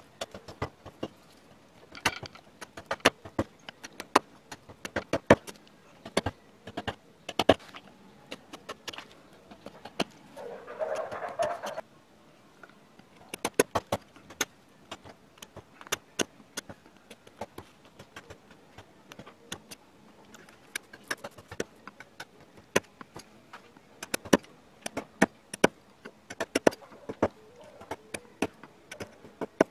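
Hand-pushed #5 carving gouge, 25 mm, slicing into a wooden panel: irregular sharp clicks and snaps as the edge bites and chips break away, with a longer rasping cut about ten seconds in.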